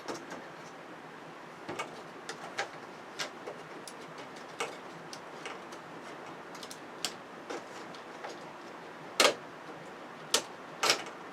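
Irregular light clicks and taps of small plastic and metal TV parts and connectors being handled during disassembly, with three louder, sharper clicks near the end.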